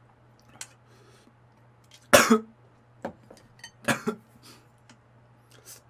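A man coughing twice, about two seconds apart, while eating very spicy noodles, with faint clicks between the coughs.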